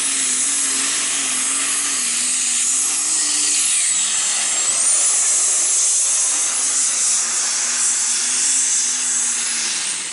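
Modified pulling tractor running flat out under load as it drags the weight sled down the track: a loud high rushing, whistling engine noise over a low engine note that wavers, then settles a little lower about three and a half seconds in.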